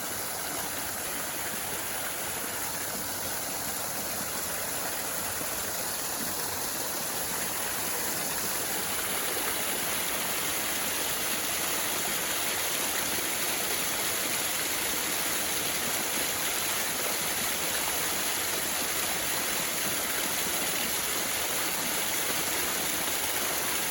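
Water tumbling down a small garden waterfall: a steady rushing hiss that grows a little louder over the first several seconds and then holds.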